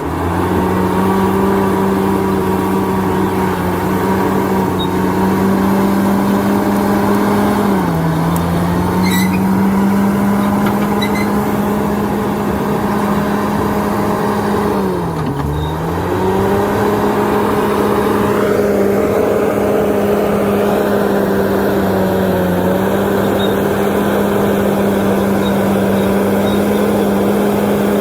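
Diesel engine of heavy earthmoving equipment running steadily at high revs. Its pitch sags briefly twice, once about a third of the way in and again just past the middle, as the engine is pulled down under load, with a few faint metallic clicks.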